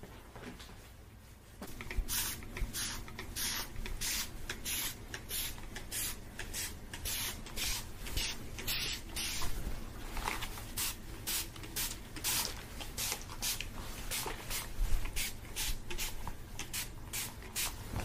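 Spray bottle spritzed in short hissing bursts, about two a second, starting about two seconds in.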